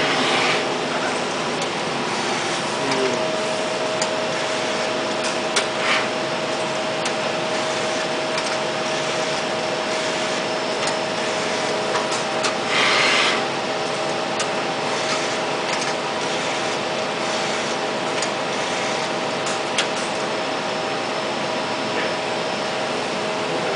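Steady noise of cleanroom air handling and machine fans, with a steady hum tone, broken by a few faint clicks and a brief hiss about 13 seconds in.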